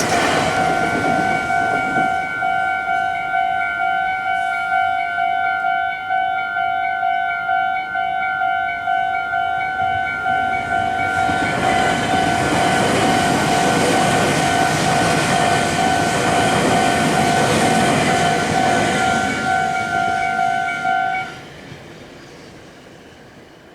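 Japanese level-crossing warning bell ringing in steady repeated electronic dings while a Meitetsu train runs through the crossing, its wheels and running gear a loud rushing noise in the second half. The bell and the train noise stop together near the end, as the crossing clears.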